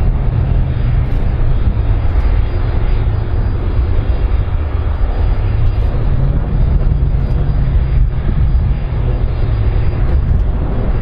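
Airbus A310-304 airliner's jet engines running, a steady loud rumble with a heavy low end that holds evenly throughout.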